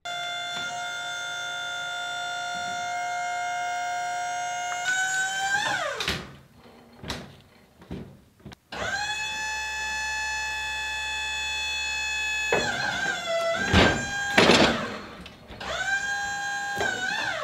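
Wood-Mizer LT40 hydraulic sawmill's hydraulic pump whining as the loading arms lift a log onto the mill bed. The whine holds steady for a few seconds at a time, sliding up or sagging in pitch as the load changes. It stops and starts again around a run of sharp clunks from the log and steel.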